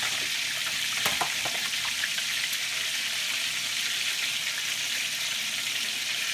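Breaded lionfish shallow-frying in hot oil in a cast-iron skillet: a steady sizzle, with a few light clicks about a second in.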